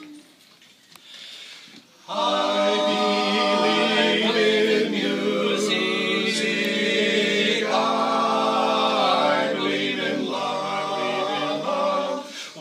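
Male vocal quartet singing a cappella in close harmony, coming in about two seconds in with held, ringing chords that change every second or so.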